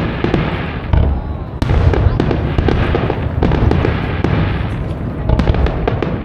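Fireworks display: aerial shells bursting in quick succession, with low booms and many crackling pops between them.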